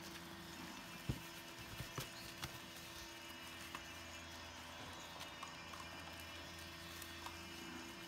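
Puppies eating dry kibble from a metal tray: a handful of light clicks and knocks, the loudest about a second in, over a faint steady hum.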